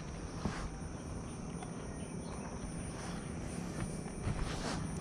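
Faint steady outdoor background of forest insects, with a few light scuffs.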